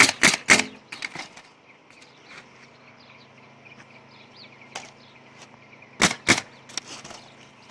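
Sharp strikes of nails being driven into asphalt shingles on a roof deck: three in quick succession at the start, a few light taps, then three more about six seconds in.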